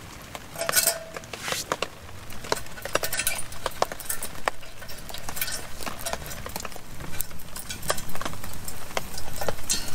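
Metal camp stove gear being handled: irregular light clinks and knocks, one ringing briefly about a second in.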